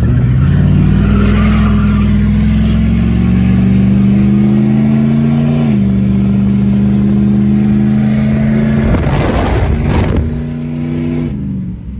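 1998 Jeep Grand Cherokee's 5.9 Magnum V8, heard from inside the cabin through an open exhaust cutout, pulling hard under acceleration. The pitch climbs steadily, drops as the automatic shifts up, then holds. A passing car adds a brief rush of noise about nine seconds in, and the engine note falls near the end.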